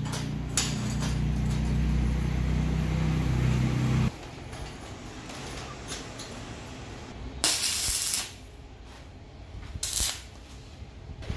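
Arc welder tack-welding steel motorcycle sprockets, two short bursts of welding crackle about seven and a half and ten seconds in. Before them, a steady low hum runs for about four seconds and stops abruptly.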